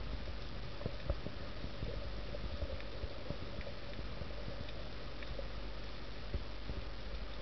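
Underwater sound picked up by a camera in its housing: a steady, muffled rumble and hiss with scattered small clicks and pops, a sharper one about a second in and another past six seconds.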